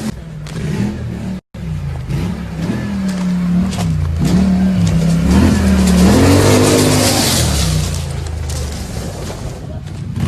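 Motorcycle engine revving, its pitch rising and falling and swelling to its loudest about six to seven seconds in. The sound cuts out briefly about a second and a half in.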